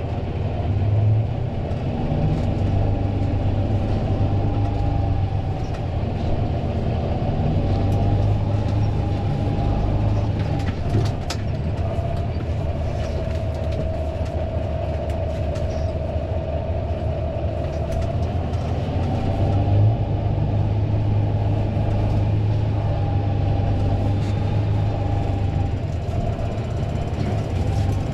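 Fendt 936 Vario tractor's six-cylinder diesel running steadily, with a low drone and a higher whine that drifts a little in pitch. A few sharp rattles come about eleven seconds in.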